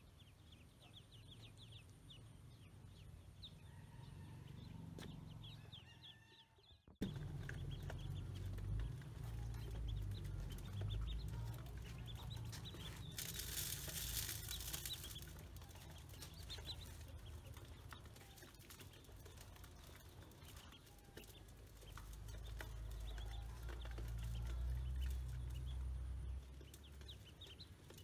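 Ducklings peeping, with many short, high chirps repeated throughout. After about seven seconds a low rumble runs under them, and for a couple of seconds around the middle there is a hissing patter as grain feed is sprinkled into a metal bowl.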